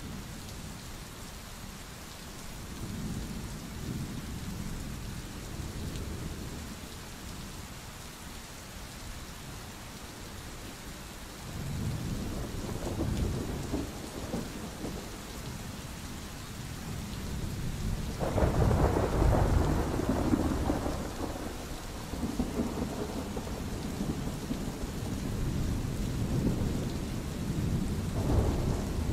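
Steady rain falling through a thunderstorm. A low thunder rumble rises about a third of the way in, the loudest peal breaks a little past the middle and rumbles on for several seconds, and another rumble builds near the end.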